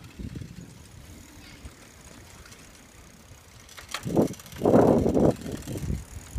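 Wind and handling noise on the microphone of a phone carried on a moving bicycle: a low rumble, then loud rushing gusts from about four seconds in.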